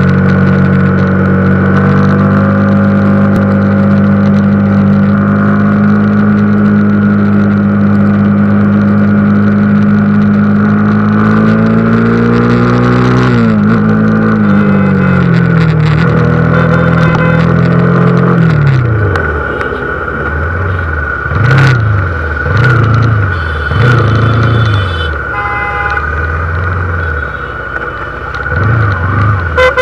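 Honda CBR motorcycle engine running at steady high revs while riding, its pitch easing down about 13 s in and then falling to low revs about 18 s in. From there it gives a series of short throttle blips in slow traffic, with a brief vehicle horn about 25 s in.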